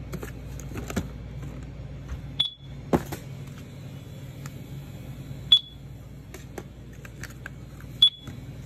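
Barcode scanner at a self-checkout beeping three times, one short high beep each time an item's barcode is read, about every two and a half to three seconds. Light clicks of plastic packaging being handled fall between the beeps.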